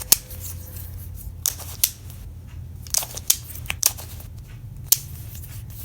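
Qiyi Qicheng Skewb puzzle being twisted by hand: its plastic pieces click sharply with each turn, about seven irregularly spaced clicks.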